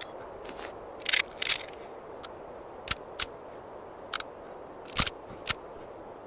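Mauser Gewehr 98 bolt action being worked: a series of sharp metallic clicks and clacks, two longer ones about a second in, single clicks through the middle and another pair near the end, over a steady hiss.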